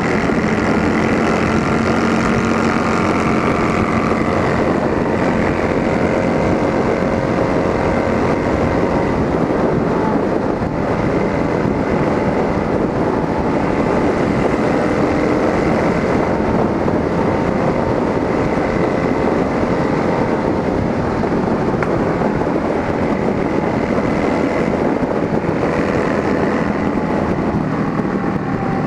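Straight-piped motorcycle exhaust running steadily at cruising speed, with wind noise on the microphone.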